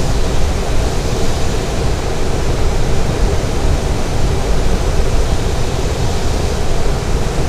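Steady rush of air around a glider's cockpit in flight: an even noise with a heavy low rumble and no engine note.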